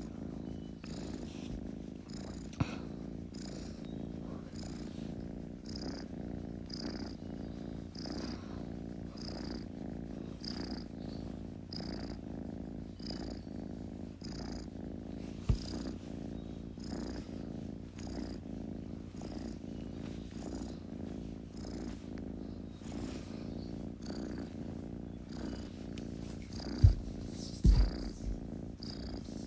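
Kitten purring steadily, a low continuous rumble that swells and eases about once a second with its breathing. A few sharp low thumps come near the end.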